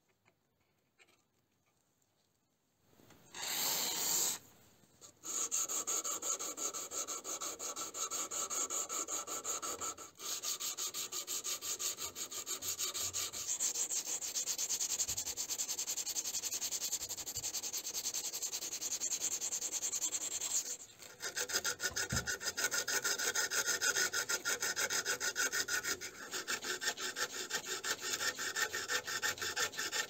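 Hand file rasping back and forth across the steel blade of an old pocket knife in fast, steady strokes, filing down the corroded surface. It begins after a few quiet seconds and a short louder scrape about three seconds in.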